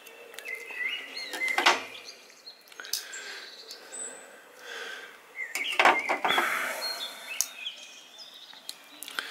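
Two Barlow slipjoint pocketknives being handled, their blades folded and opened, giving sharp clicks as the blades snap into place, most strongly about a second and a half in and again near six seconds. Birds chirp faintly in the background.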